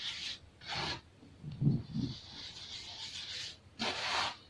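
Hands rubbing and crumbling a pile of baking soda powder: a steady grainy crunching hiss, with two louder scrunching bursts about a second in and near the end, and a couple of short, dull thumps around two seconds in.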